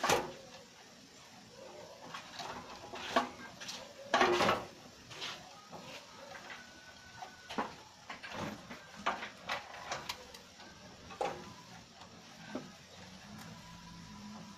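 Scattered clicks, knocks and rattles of hands handling parts inside a desktop computer case: cable connectors, the motherboard and the sheet-metal chassis. The sharpest knock comes right at the start and a longer rattle about four seconds in.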